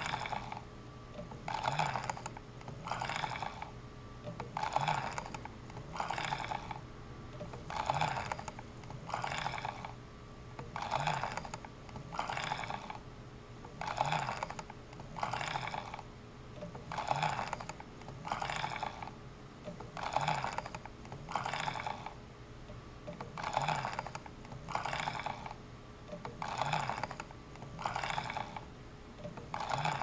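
Rotary selector switch of a Keysight U1231A multimeter being turned back and forth by a cycling rig. Each turn is a short grinding scrape, about one every one and a half seconds, in an even rhythm. A slight grind from the unlubricated switch near the end of a 50,000-cycle life test.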